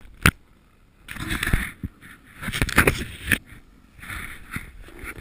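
A sharp knock near the start, then uneven bursts of scraping and swishing with a few clicks: a snowboard sliding over snow, heard through a handheld GoPro Hero2 that knocks as it is handled.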